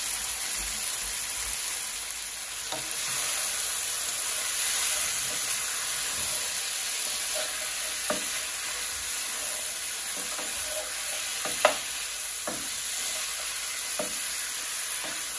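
Chicken pieces sizzling in curry in a nonstick pot, browning in the curry with no liquid yet added, while a wooden spoon stirs them. The stirring brings a few sharp knocks of the spoon against the pot, the loudest about twelve seconds in.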